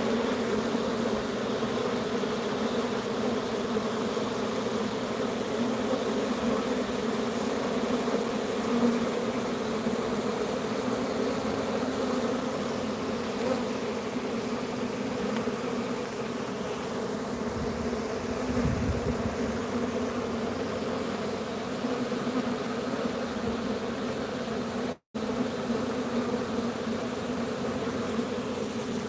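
A honeybee swarm buzzing in a steady, dense hum, with a short break to silence about 25 seconds in.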